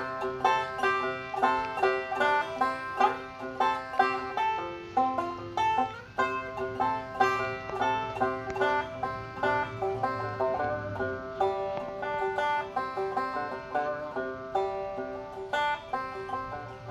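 Background music: fast plucked banjo picking in a bluegrass style.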